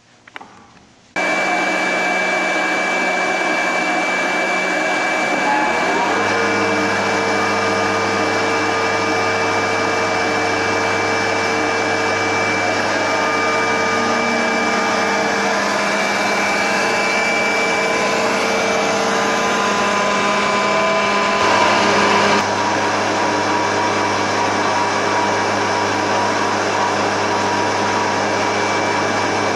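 Quadro Fine Grind F10 powder mill starting up about a second in and running steadily under load as it grinds powder, a dense machine noise with a steady whine. A deeper hum joins about six seconds in.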